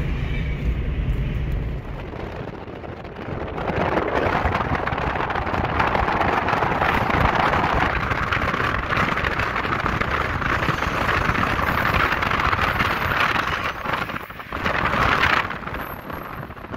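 Steady rush of wind and road noise from a car driving along, a low cabin rumble at first, then a loud, even rush from about four seconds in with the window open.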